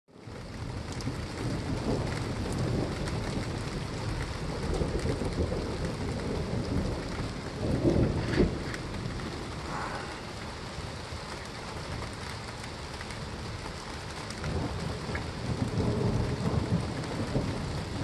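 Steady rain with low rumbling thunder, swelling to a louder rumble about eight seconds in.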